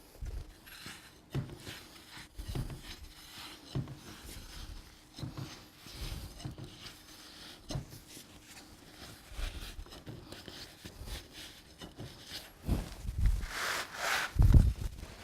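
A replacement door sweep being worked into the bottom of a door with a pry bar: irregular rubbing and knocks against wood, with louder thumps near the end.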